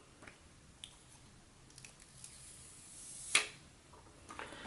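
Faint handling of a new iPhone X and its box: light clicks and taps, with one brief louder swish about three and a half seconds in.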